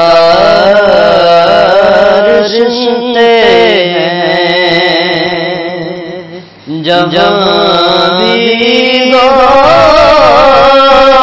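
A male voice singing a naat, a devotional song in praise of the Prophet, in long, ornamented, held phrases. There is a short break for breath a little past the middle.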